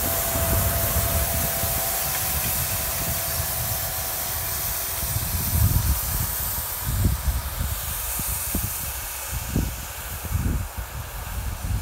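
New Holland tractor pulling a KUHN seed drill across a field: a steady rushing hiss of machinery, with wind buffeting the microphone in low gusts that get choppier about halfway through.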